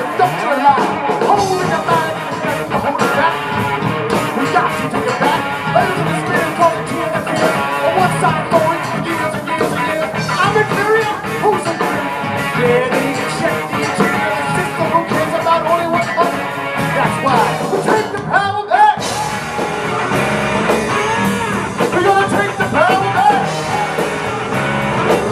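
Live rock band playing with electric guitar and singing. The music breaks off for a split second about three-quarters of the way through, then carries on.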